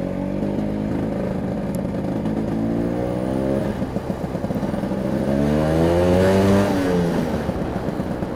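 Vespa GS150 scooter's P200E 200cc two-stroke engine revving up under acceleration in first gear. The pitch climbs for about three seconds and falls back, then climbs again, louder, to a peak shortly before the end and drops as the throttle closes.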